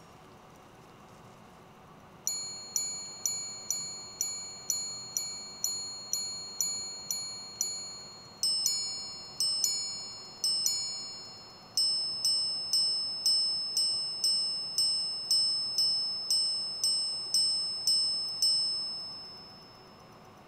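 Minute repeater of a Chopard L.U.C Full Strike Sapphire, its hammers striking monobloc sapphire-crystal gongs after a click at the start. It chimes the time in three groups: a run of lower single strikes for the hours, a few two-tone ding-dong pairs for the quarters, then a longer run of higher single strikes for the minutes. Each strike rings clear and dies away before the next, with no audible regulator whirr between them.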